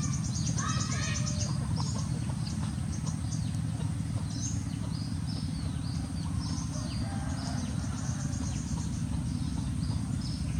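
Many short, high chirping calls, falling in pitch, come one after another over a steady low rumble.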